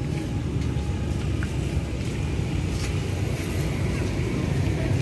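Steady low rumble of city street ambience: distant road traffic with wind on the microphone.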